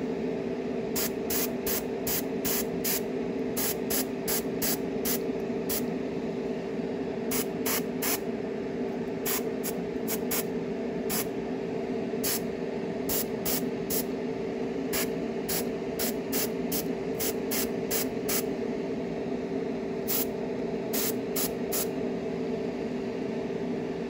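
Iwata Neo dual-action airbrush spraying thinned paint in dozens of short hissing bursts, in irregular clusters with brief pauses, over a steady hum.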